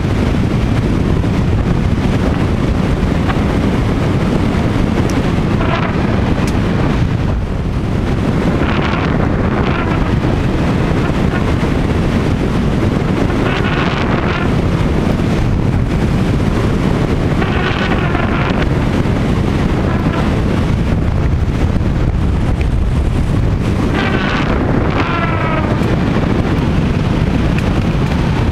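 Wind rushing over the microphone of a hang glider's wing-mounted camera in flight, mixed with the buzz of a piece of the glider's sail vibrating near the camera. A higher buzz rises over the steady rush several times.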